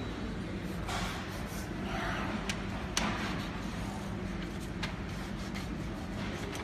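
A sheet of paper being slid and rustled between a 3D printer's nozzle and build plate to gauge the gap during bed levelling. A few sharp clicks come through, over a steady low hum.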